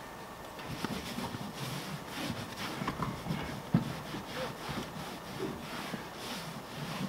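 Scrubbing a car's interior surfaces: quick back-and-forth rubbing strokes, about three a second, with a light knock about halfway through.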